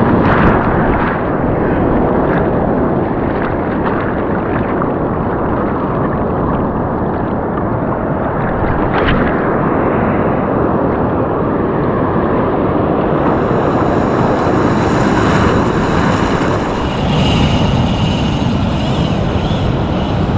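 Ocean surf breaking and washing around the angler, with wind buffeting the microphone. It is muffled for roughly the first dozen seconds, then brighter and clearer.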